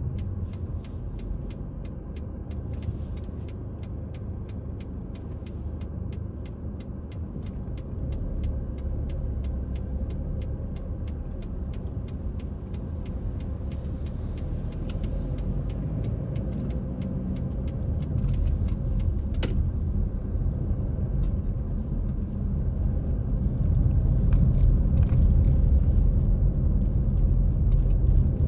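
A car driving on a city street: steady engine and tyre rumble with road noise, growing louder toward the end as the car picks up speed.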